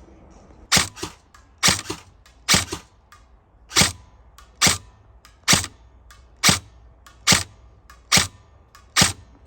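Krytac Trident SPR airsoft electric rifle firing single shots, ten sharp cracks at a steady pace of a little over one a second, some followed by a fainter click.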